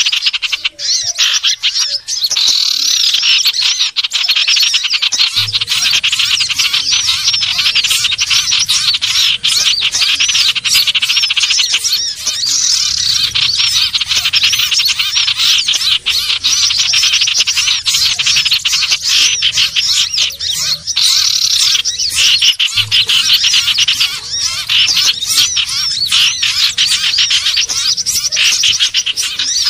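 Common iora (sirtu/cipoh) calls from a bird-lure recording: dense, unbroken rapid chirping and warbling trills, loud and steady. A faint low hum joins about five seconds in.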